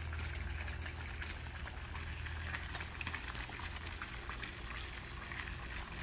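Microwave oven running with a steady low hum, with a faint bubbling crackle of many small ticks from the iPhone 6 burning inside it.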